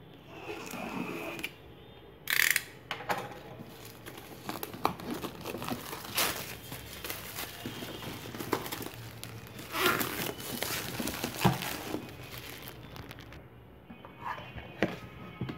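Plastic shrink wrap on a cardboard box being slit with a utility knife and torn off, crinkling and crackling in irregular bursts with several sharp, loud rips. It dies down near the end.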